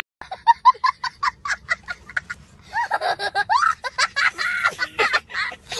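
A young child laughing hard, first in quick short bursts several times a second, then in longer high-pitched squeals of laughter from about three seconds in.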